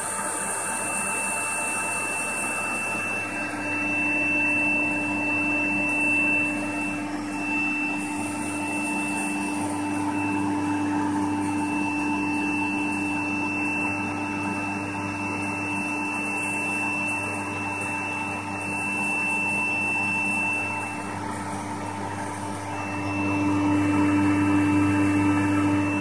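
Vacuum cleaner motor running continuously, pulling air through a homemade plastic-tub cyclone separator, with a steady hum and a thin high whistle. Its level and note shift a few times, dipping a little past the three-quarter mark and then growing louder near the end.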